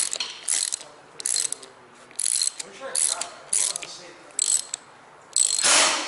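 Hand ratchet clicking through about eight quick back-and-forth strokes, tightening the top nut of a coilover strut. Near the end comes a single louder burst of noise, longer than the clicks.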